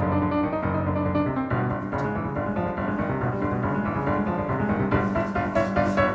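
Background music led by piano, with notes changing at a steady pace.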